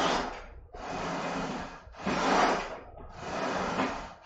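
A man breathing hard through Smith machine squats: a longer, quieter breath in as he lowers, then a shorter, louder forceful breath out as he drives back up, about once every two seconds.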